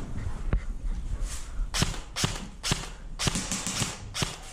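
Airsoft guns firing single shots, about ten sharp cracks at an uneven pace of two to three a second.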